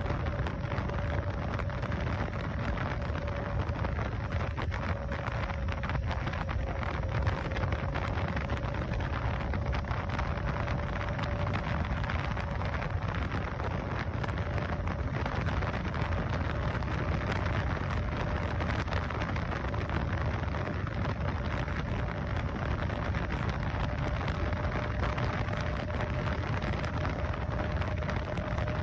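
Zero FX electric motorcycle riding at highway speed: a steady rush of wind and road noise, with a thin whine from the electric drive that rises slightly in pitch as the bike speeds up.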